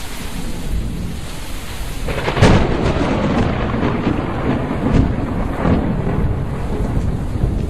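Thunderstorm sound effect: a steady rain-like hiss, then a loud thunder crack about two and a half seconds in that rolls on as rumbling.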